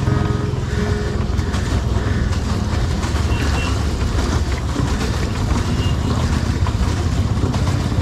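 Pedal boat's paddle wheel churning the water as it is pedalled: a steady low rumble under a continuous rushing noise.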